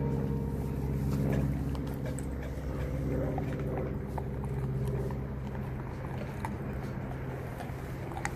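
A Renascence Bulldogge gnawing and crunching on a whitetail deer foreleg, with scattered sharp clicks of teeth on bone and hoof. A steady low hum runs underneath.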